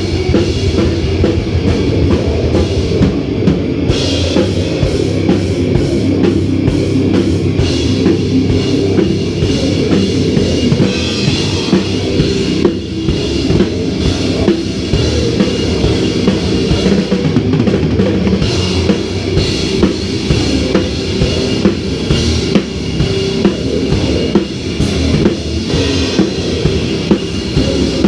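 A heavy metal band playing live, the drum kit to the fore with rapid drum strokes and cymbals over a dense, heavy low end.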